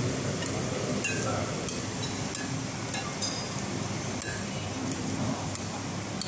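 Cutlery clinking and tapping against plates, a dozen or so light, irregular clinks as a dish is mixed, over a steady background hum.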